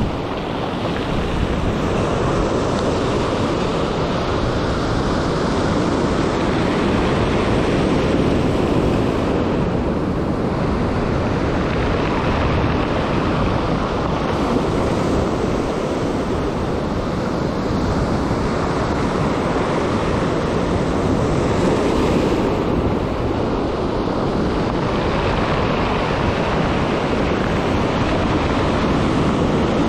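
Ocean surf breaking and washing up over a stony beach, swelling and easing with each incoming wave, with wind noise on the microphone.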